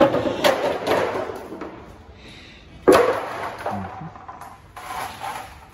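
Two loud metal clanks about three seconds apart, each dying away over a second or so, with lighter knocks between: tools striking the underside of a car during axle removal for new CV boots.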